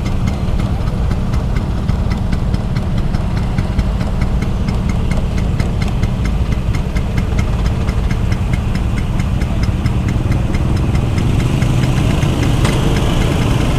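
Vintage Vespa Sprint scooter's two-stroke single-cylinder engine running while the scooter is ridden: a steady low rumble with a fast, even ticking on top.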